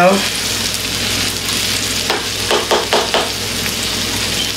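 Burger patties sizzling steadily in a pan. A spoon knocks about five times, a little over two seconds in, as mayonnaise is scooped from the jar.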